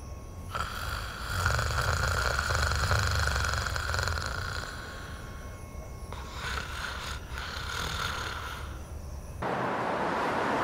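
A man snoring in his sleep: two long snores, the first lasting about five seconds and the second shorter. Near the end the sound cuts to a steady hum of city traffic.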